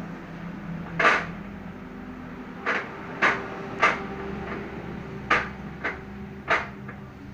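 A bundle of freshly made incense sticks knocked end-down against the machine's metal tray about seven times at an uneven pace to line up the ends, the first knock the loudest. Under the knocks runs the steady hum of the incense-making machine's motor.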